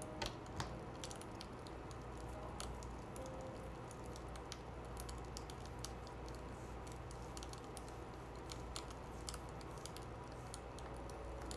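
Faint handling of paper sheets: scattered small clicks and rustles over a low, steady room hum.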